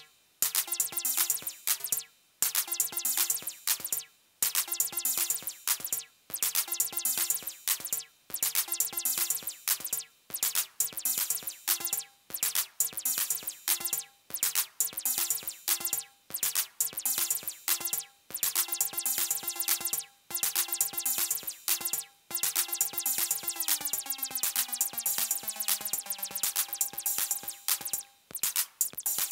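Acid jam: a Behringer RD-8 808-style drum machine playing a fast, even pattern under a sequenced Behringer TD-3 303-style bassline whose knobs are being tweaked live, with short breaks in the pattern about every two seconds and a falling pitch glide about two-thirds of the way through.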